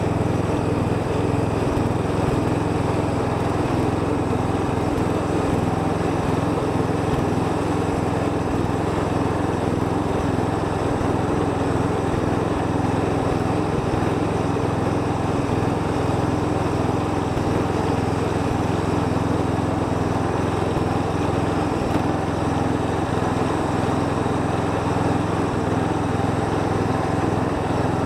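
Castel Garden lawn tractor's engine running steadily while towing a loaded trailer of firewood.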